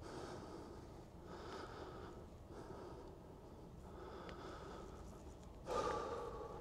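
Faint breathing of a person close to the microphone, in soft in-and-out swells about every second and a half, with a louder sniff near the end.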